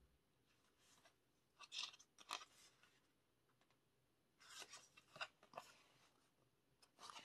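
Faint paper rustles and flicks as photobook pages are handled and turned: one cluster about two seconds in and another about four and a half to five and a half seconds in.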